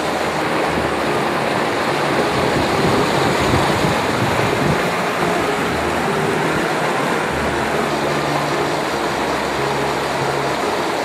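River rapids rushing over rocky shallows, a steady loud whitewater noise.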